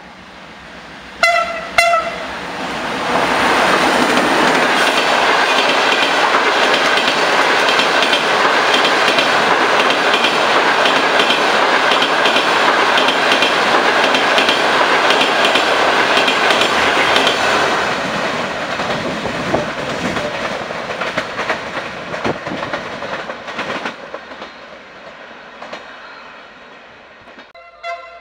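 Passenger train sounds two short horn blasts, then runs through the station at speed: a loud rush of wheels and coaches with rapid clickety-clack over the rail joints, which fades away over the last several seconds.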